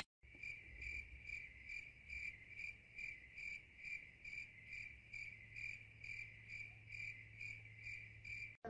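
Cricket chirping sound effect: an even, regular chirp about twice a second, cut off suddenly near the end. It is the stock 'awkward silence' crickets gag.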